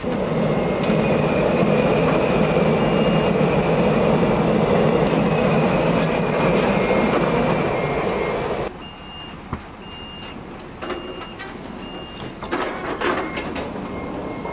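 Heavy truck machinery running loudly and steadily for about nine seconds, then cutting off suddenly. After that a warning beeper sounds in short beeps about a second apart.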